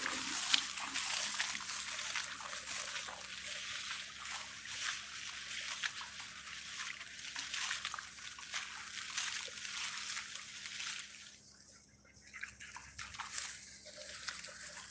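Dry rice stubble and straw rustling and crackling steadily under footsteps through a harvested paddy field. The sound thins out briefly about eleven seconds in.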